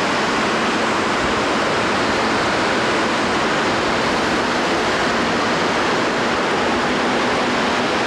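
A steady, even rushing of water, with no change in level.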